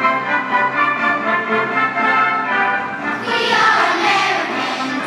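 Children's choir singing a patriotic song over recorded band accompaniment with brass; the voices come in strongly about three seconds in.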